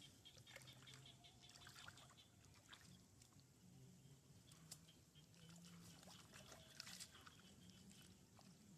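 Near silence: a faint low hum with a few scattered soft ticks.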